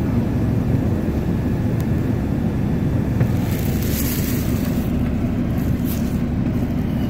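MTA city bus running, a steady low rumble heard from inside the cabin, with two brief hisses about four and six seconds in.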